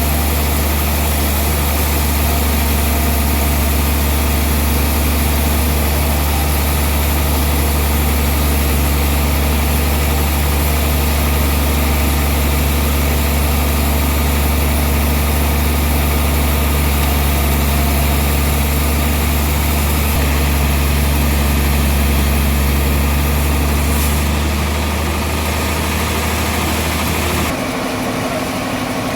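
Sawmill machinery running steadily: a deep engine hum under a broad hiss. Near the end the deep hum drops away and the sound changes.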